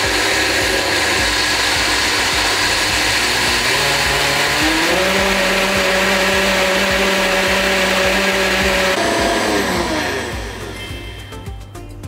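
Vitamix V1200i blender motor running at full load, grinding soaked raw rice with eggs, chocolate and butter into a smooth batter. About four and a half seconds in the motor speeds up and its pitch rises; around nine seconds in it slows and winds down to a stop.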